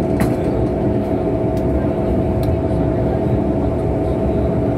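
Inside the car of an MTR M-Train electric multiple unit running steadily: an even rumble of the running gear with a constant hum, and a faint click about a quarter-second in.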